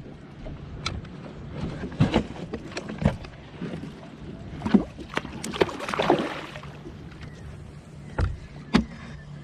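Irregular knocks and clicks of rod-and-reel handling while a hooked kingfish pulls on a bent baitcasting rod, with a brief rushing noise about six seconds in.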